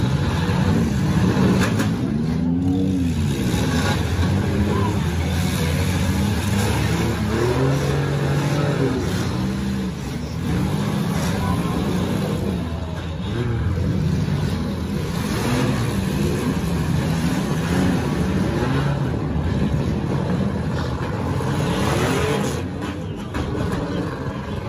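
Several demolition derby cars' engines revving hard at once, their pitch rising and falling in overlapping sweeps, with the odd crunch of cars colliding.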